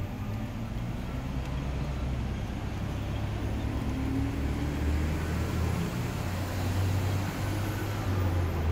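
Street traffic: a steady low rumble of road vehicles, with one engine rising in pitch around the middle.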